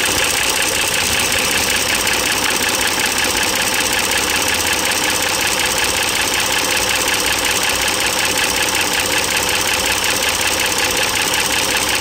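2009 Dodge Journey's 3.5-litre V6 idling, with a steady rapid clicking, tapping in the valvetrain, which the owner is pretty sure comes from worn rocker arm assemblies under the intake manifold that no longer get enough oil. Heard with the microphone pressed right against the engine cover.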